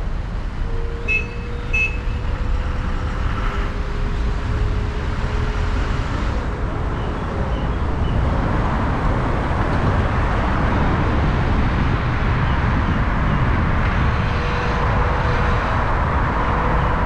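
Steady car and road noise of driving in city traffic: a low rumble with a faint hum. It grows louder about eight seconds in.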